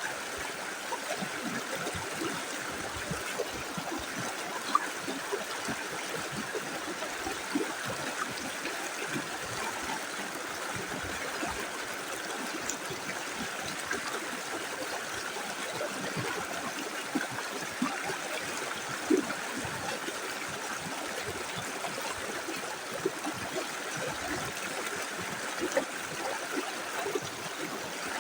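Small river running over stones: a steady rush of flowing water with frequent small gurgles and splashes.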